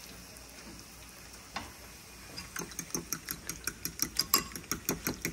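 A cooking utensil stirring in a pot, with a fast run of sharp taps against the pot, several a second, that starts about halfway through and grows louder.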